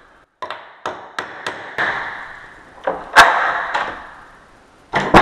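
Hammer blows on the steel strike plate of a metal door frame, about ten sharp strikes at uneven intervals with the loudest a little past halfway, each ringing briefly. The plate is being knocked into place so the deadlock's latch seats more solidly.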